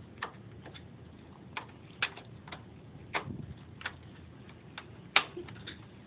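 Irregular light clicks and taps of a DDR3 memory stick and the plastic slot being handled as the stick is slid and pressed into a motherboard RAM slot. One sharper click comes about five seconds in.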